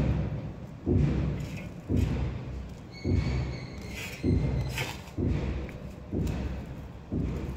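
Dull low thumps repeating about once a second, each fading out before the next. A faint steady high tone sounds for about two seconds midway.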